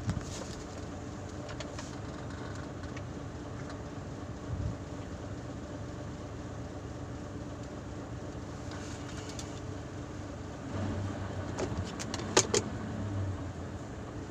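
Container truck's diesel engine idling steadily, heard from inside the cab. A short run of sharp clicks and rattles comes about twelve seconds in.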